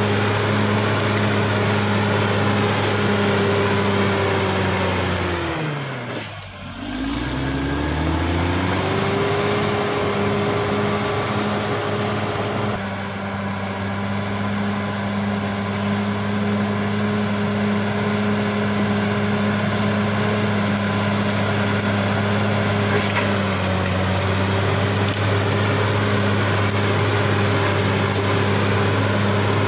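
Caterpillar D6R XL bulldozer's diesel engine running steadily under load. About six seconds in, the engine speed drops sharply and climbs back within a couple of seconds, with a smaller dip later on. Scattered crackling sounds over the engine, mostly in the second half.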